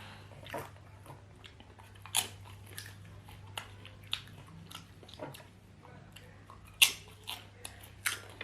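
Close-up mouth sounds of someone eating potatoes: chewing and biting with irregular short wet clicks and smacks, two louder ones near the end.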